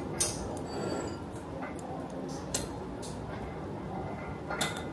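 Metal kitchen tongs clicking against a plastic tub while lifting out kimchi: a few sharp clicks a second or two apart.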